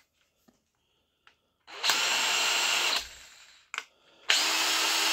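DeWalt DCD795 18 V brushless hammer drill run free with no load in two short trigger pulls, each about a second long at a steady speed, the first winding down after release. A sharp click comes between the two runs.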